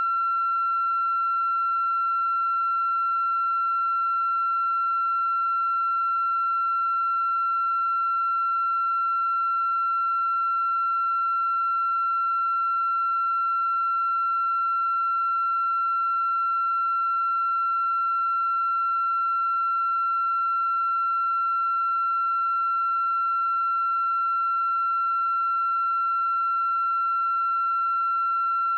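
A steady high-pitched tone held at one unchanging pitch and level throughout, with fainter overtones above it.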